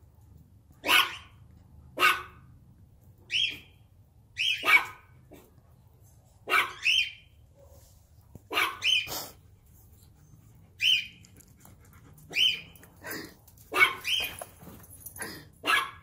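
Dog barking repeatedly: sharp single barks and quick doubles or triples, a second or two apart.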